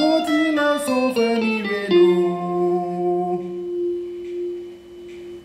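Guitar playing a quick run of notes that steps downward over about two seconds, then one note left ringing and slowly fading.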